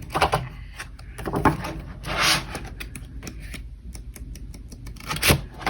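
Handling noise of paper and card items being sorted by hand: scattered clicks and taps, a brief rustle about two seconds in, and a sharper click near the end.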